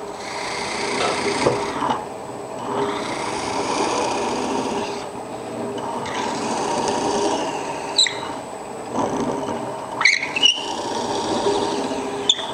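Wood lathe spinning a bigleaf maple blank while a hand-held drill bit bores a centre hole into its end, cutting in several pushes of a second or two each. A few short squeals and clicks from the bit come near the end.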